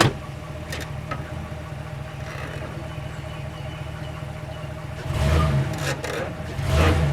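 Truck engine idling, with a sharp click at the very start and the engine picking up briefly twice, about five and about seven seconds in.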